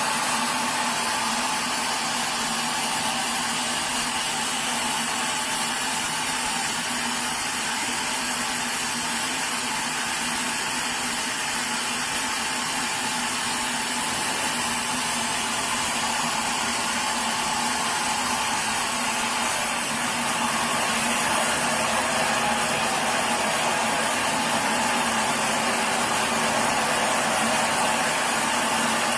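Sawmill machinery running steadily, a continuous motor-driven whine and rush with a few fixed tones and no change in load.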